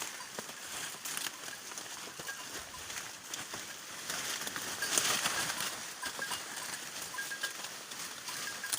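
Wind rustling through forest foliage, swelling about five seconds in, with short high chirps and scattered small clicks.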